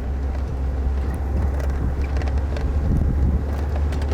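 Safari vehicle driving, a steady low engine and road rumble with wind buffeting the microphone.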